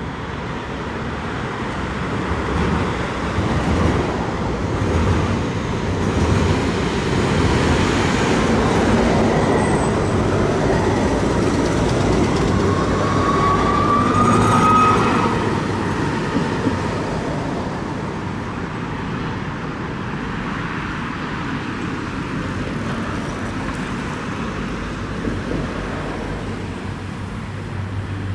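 ABB/Bombardier Eurotram light-rail tram approaching and passing close by. It grows louder to a peak about halfway, with a brief rising whine at the loudest point, then fades into road traffic.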